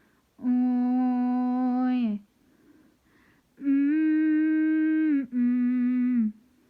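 A singer humming three long, steady notes without accompaniment, the middle note a little higher than the other two.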